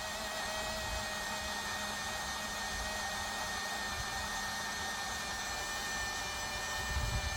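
Portable rechargeable juice blender's small motor running steadily with a whine, blending a thick protein-drink mix.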